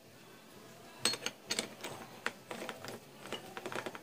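Keyed drill chuck being handled and tightened with a chuck key: a string of irregular metallic clicks and clinks starting about a second in.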